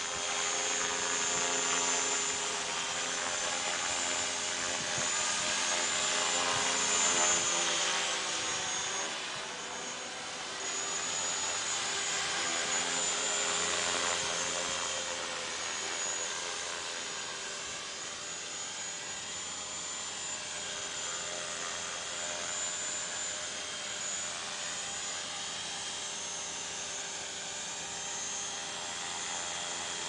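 Align T-Rex 500 electric RC helicopter in flight and then hovering low: a steady high whine from the motor and gears over the pitched buzz of the main rotor, which bends in pitch as the helicopter swings past and settles. The odd note in the rotor sound is put down by the uploader to stickers on the main blades.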